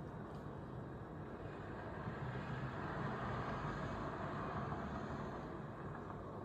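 A car driving past, its tyre and road noise swelling to a peak about three to four seconds in and then fading away.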